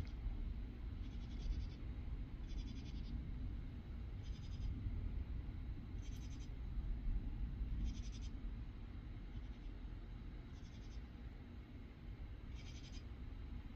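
Insects calling on a summer night in short raspy pulsed bursts, one about every second and a half, over a low steady rumble.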